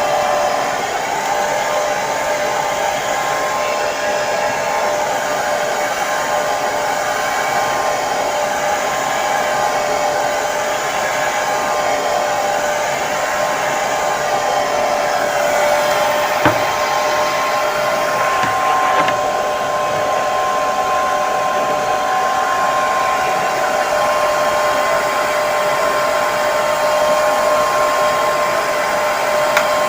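Hair dryer running continuously, a steady whooshing blow with a constant motor whine.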